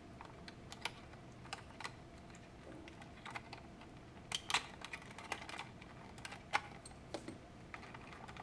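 Small, sharp plastic clicks and taps as a screwdriver tip works the release pins of a Vivitar 285HV flash's plastic housing and the case shifts in the hands. The clicks come irregularly, a dozen or so, a few louder ones about halfway through.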